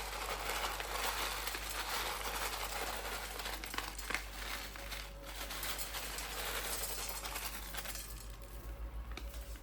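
Crinkling and rustling of packaging, with a few light ticks, as dried cloves are handled and tipped into a pot.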